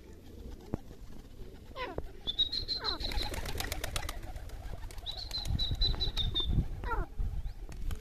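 Birds calling: two high, level whistled calls about a second long each, with quick downward-sweeping notes before and after them, over a low rumble.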